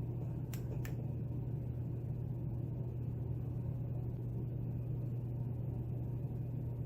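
Steady low background hum, with two faint light clicks about half a second and just under a second in.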